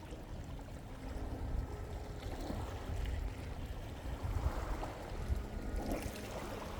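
Wind buffeting the microphone in an uneven low rumble, over water washing and trickling at the shoreline.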